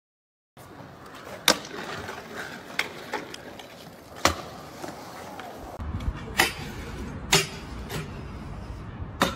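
Stunt scooter tricks: about six sharp clacks as the scooter's deck and wheels land on concrete and hit a metal rail. A steady low rumble comes in about six seconds in.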